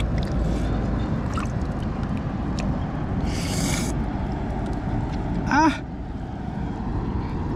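A man's single short, sharp cry of pain about five and a half seconds in, his hand caught by a mud crab's claw. Under it runs a steady low rumble, with a brief hiss a little past three seconds.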